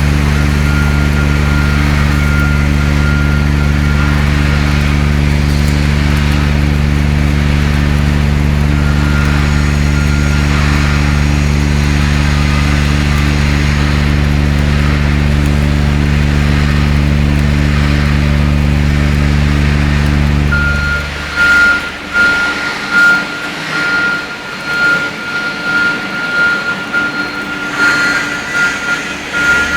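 A machine running with a steady low hum, which cuts off about two-thirds of the way through. After that there is uneven clattering noise and a thin, high, beeping tone.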